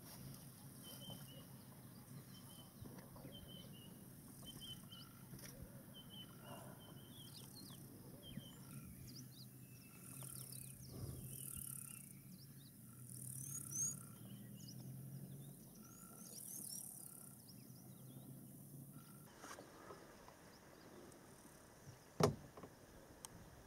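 Faint bush ambience: birds calling in short repeated chirps, insects buzzing in pulses high up, and a low steady hum underneath. Most of it cuts off about three-quarters through, and a single sharp knock comes near the end.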